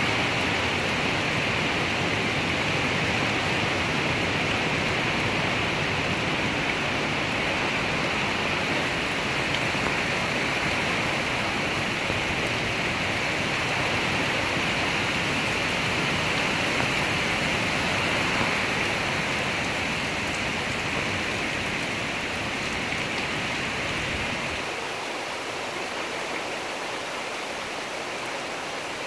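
Steady rushing hiss of wind through the trees, with a low wind rumble on the microphone that drops away near the end.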